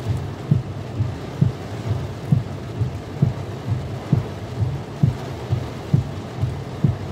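Windscreen wipers running fast in heavy rain, heard from inside the car: a soft low thump about once a second as the blades sweep. Under it is a steady noise of rain on the car and a low rumble of engine and road.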